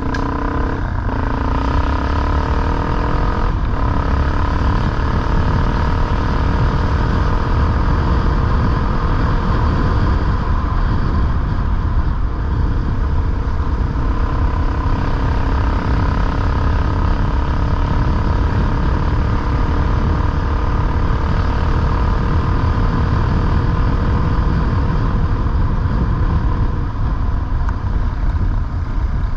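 Off-road motorcycle engine running under way, with wind noise rumbling on the microphone. The engine's pitch climbs a few seconds in, then holds steady at a cruising speed.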